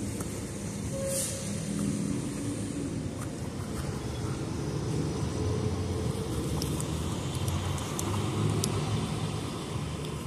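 Road traffic going by, cars and a bus, as a steady low rumble that grows louder in the second half.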